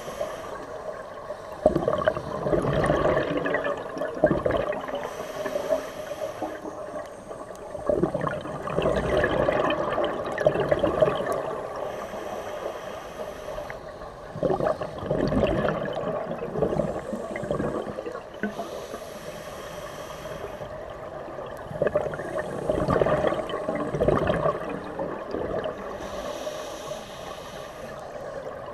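Scuba regulator breathing under water: a hiss on each breath in, then a loud burst of exhaust bubbles on each breath out, repeating every six or seven seconds.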